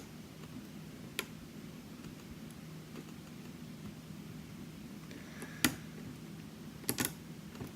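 Lock pick and tension wrench working the pins of a high-security challenge lock: a few sharp faint clicks, one about a second in, another past halfway and a quick pair near the end, over a low steady hum.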